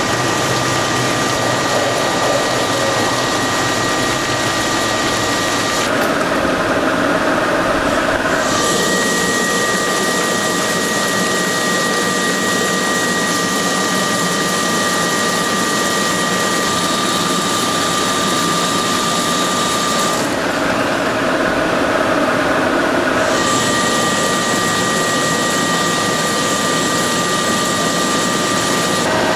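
Heavy-duty CNC turning centre running a cut: a steady machining noise with a thin high whine. Twice the sound changes for a few seconds, losing its hiss at the top and its whine shifting in pitch.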